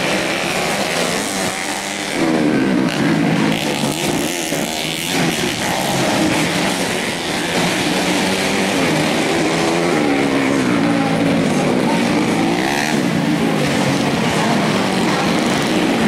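Modified 125 cc four-stroke underbone motorcycles racing on a dirt track. Several engines rev up and down over and over as the riders open and close the throttle.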